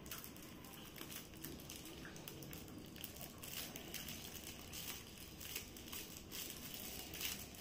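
Shiny metallic gift-wrapping paper crinkling in faint, irregular rustles as a present is pulled open by hand.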